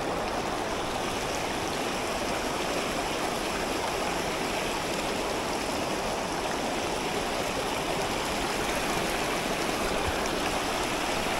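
Rushing water of a river rapid running over rocks: a steady, even rush that grows a little louder near the end.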